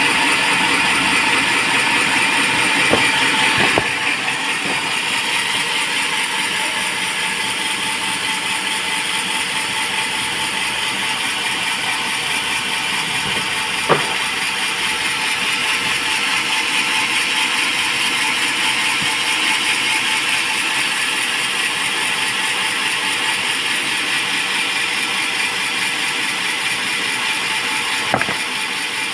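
Band sawmill running steadily, the blade cutting through teak timber, with a few sharp knocks along the way.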